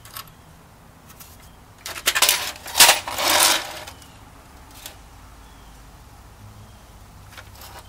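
Metallic clatter and clinks as the removed breaker panel's sheet-metal and bus-bar interior is handled and turned over, a short burst about two to three and a half seconds in, loudest near the three-second mark, then a few faint ticks.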